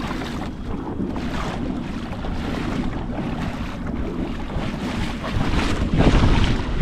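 Wind buffeting the action-camera microphone over water splashing and rushing against the hull of a kayak moving through choppy sea. It grows louder near the end as spray comes off the bow.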